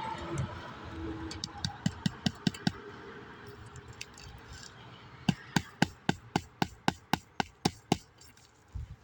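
Hammer driving roofing nails into a replacement asphalt shingle: a short run of quick blows, a pause, then a longer, even series of about a dozen strikes, roughly three a second.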